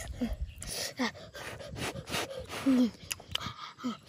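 A person makes short vocal sounds that fall in pitch, four times, among soft clicks and rustling from hands handling the cooked mushrooms.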